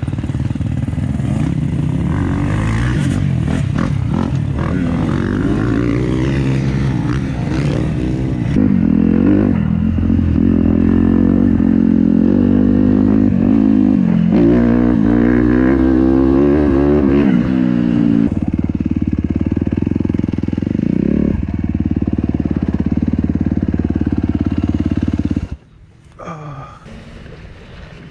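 Suzuki dirt bike's engine running while ridden, its revs rising and falling with the throttle, with some rattle over rough ground early on. It shuts off about three seconds before the end.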